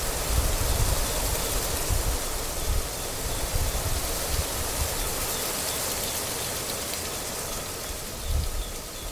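Wind blowing across the microphone: a steady rushing hiss with irregular low buffeting in gusts, easing in the middle and gusting again near the end.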